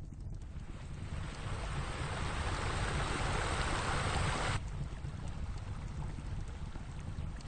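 A rushing noise that swells steadily, then cuts off abruptly about four and a half seconds in, leaving a steady low rumble.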